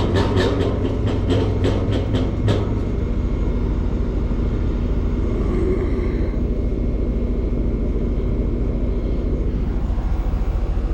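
Rheem Prestige outdoor air-conditioning condensing unit running with a steady low hum, its ECM condenser fan motor suspected of hanging up and slowing down. There is a quick run of clicks and rattles in the first couple of seconds.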